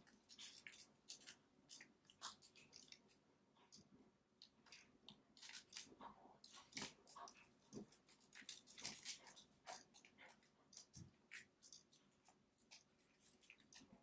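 Faint, irregular crackling and clicking of lovebirds pecking and chewing at debris on a window ledge.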